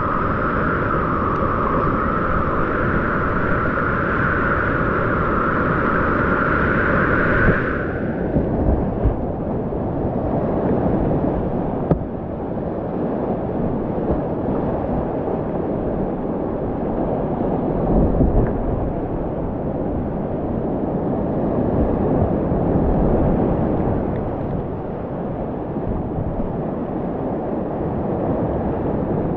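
Whitewater of a steep creek rushing and splashing right around a kayak, loud and continuous. A higher hiss over the water cuts off suddenly about eight seconds in, leaving a broad, churning rush.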